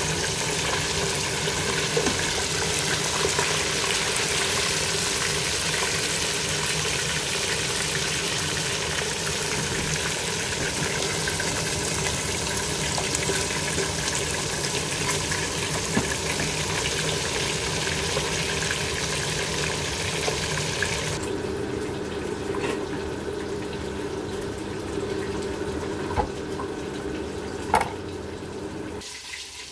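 Whole fish deep-frying in hot oil in a steel pot: a steady, dense crackling sizzle. About two-thirds of the way through the sizzle loses its hiss and turns duller, with two sharp clicks near the end.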